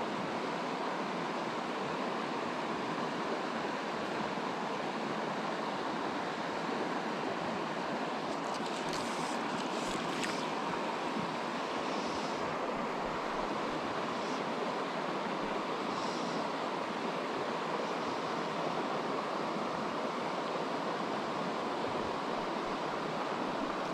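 Steady, even rush of river water flowing over a shallow rocky riffle. A few faint brief rustles about nine to ten seconds in.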